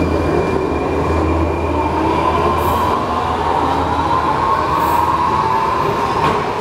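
Metro train pulling out of the station: the whine of its motors rises steadily in pitch as it speeds up, over a low rumble that fades after about two seconds.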